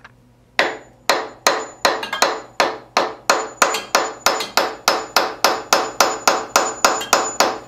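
Steady hammer blows, about three a second, on a tool held against the piston top of a seized Puch moped engine. The hammering drives the stuck piston down the cylinder to break it free.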